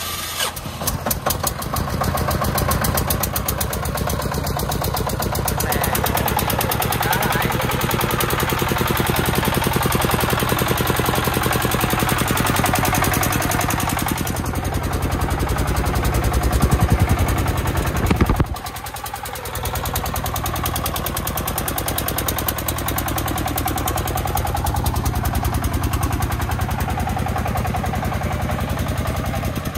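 A three-wheeled công nông dump truck's 33-horsepower diesel engine runs with an even, rapid chugging beat as the truck pulls away and drives on. The sound drops away briefly about eighteen seconds in.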